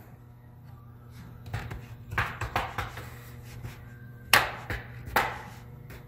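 Snap-fit clips of an Acer Aspire 5 A515-43 laptop's plastic-and-metal bottom pan clicking as a plastic spudger pries along the seam, with two sharp snaps about four and five seconds in as clips pop loose. A low steady hum sits underneath.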